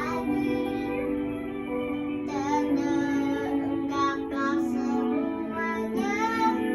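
A young female voice singing a melody with held notes that glide in pitch, over a steady instrumental backing.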